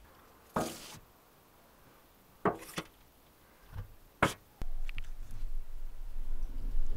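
A few separate sharp knocks and clatters, then a steady low rumble that starts suddenly about four and a half seconds in.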